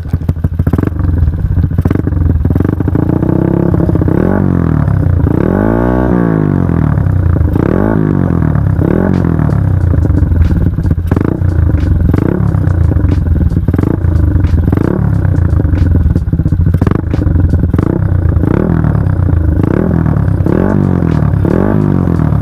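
Yamaha LC135 single-cylinder four-stroke motorcycle revved repeatedly through an aftermarket Espada E6 32mm exhaust with its silencer insert in. The revs rise and fall, with one longer rev about six seconds in and then a run of short throttle blips. The exhaust note is loud and raspy ("koyak").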